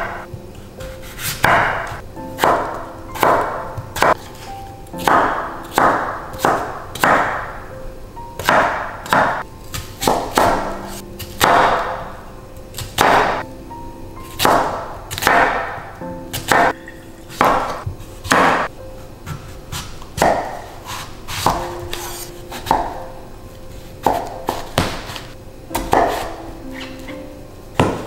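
Chef's knife chopping potato, onion and zucchini on a wooden cutting board, each stroke a knock of the blade against the board, at an unhurried, uneven pace of about one to two cuts a second. Soft background music plays underneath.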